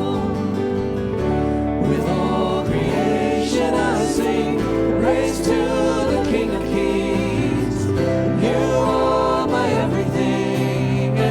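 A church worship song: voices singing a wavering melody over held instrumental chords and low bass notes.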